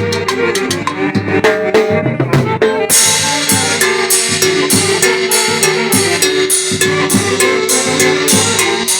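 Live band-orchestra playing Latin dance music: brass over drum kit and percussion. About three seconds in, a steady cymbal beat comes in, and a long note is held through the middle.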